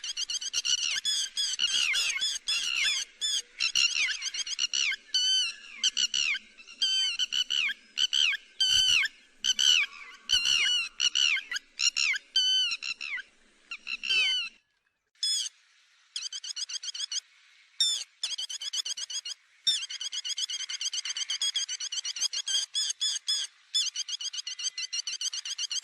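Yellow-billed lapwing ('te te mỏ vàng') calling: fast, repeated series of sharp, high, downward-slurred notes, with a short break about fourteen seconds in.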